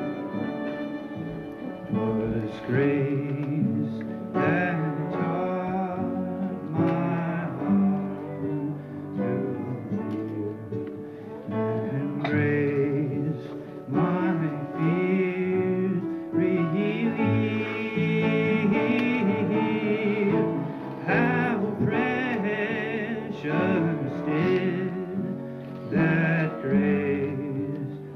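A young man singing solo into a microphone, accompanied by guitar, with long held notes sung with vibrato.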